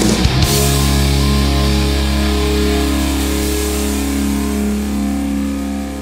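Punk rock recording: a last crash of drums and band about half a second in, then a held electric guitar and bass chord that rings on and slowly fades.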